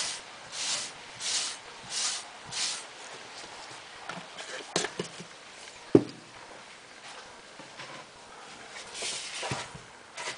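Cloth rubbing back and forth along a rusty steel rifle barrel, five even strokes in the first three seconds, about one and a half a second. Then a few small handling clicks, a sharp knock about six seconds in, the loudest sound, and more rubbing and handling near the end.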